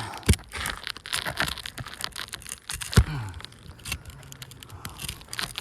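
Close crinkling, tearing and rubbing handling noise with scattered clicks and two or three dull knocks, as rubber is pulled and peeled off by hand.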